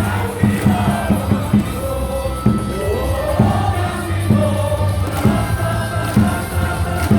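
Baseball stadium cheer song with a steady beat over the public-address system, the home crowd singing and chanting along in unison.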